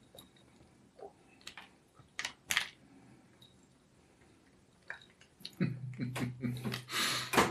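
A few scattered light clicks and crackles of crisp food being handled on a table, then a low voice murmuring for the last couple of seconds.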